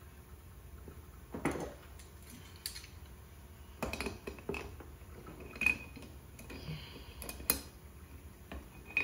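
Hand tool clinking and scraping against a two-barrel Motorcraft carburetor as the power valve is fitted: irregular sharp metallic clinks and taps, the loudest a little past the middle with a brief ring.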